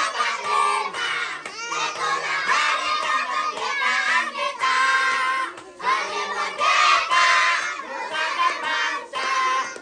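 A group of young children singing loudly together, their voices overlapping as in a crowd.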